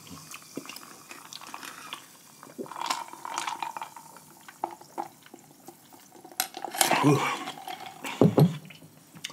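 Close-miked eating sounds: sipping a drink through a straw and licking fingers, with scattered light clinks of a glass jar and dishes.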